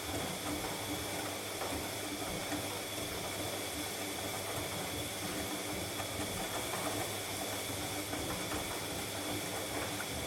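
Bosch MAXX 6 front-loading washing machine running through a boil wash: a steady hiss with a faint, on-and-off motor hum.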